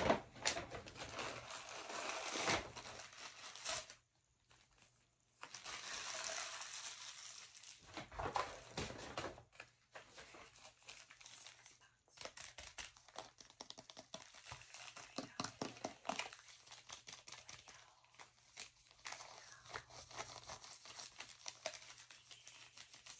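Shipping mailers being handled and torn open by hand: paper packaging rustling and tearing, then a plastic mailer bag crinkling in many short crackles. A brief pause about four seconds in.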